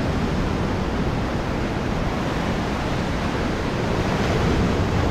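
Ocean surf breaking and washing up a sandy beach, a steady rushing noise, with wind rumbling on the microphone.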